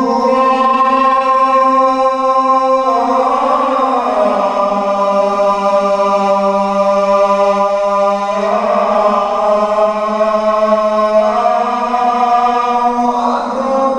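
A muezzin's call to prayer (adhan): one man's voice chanting long held notes into a microphone, the pitch shifting slowly from phrase to phrase and dropping about four seconds in.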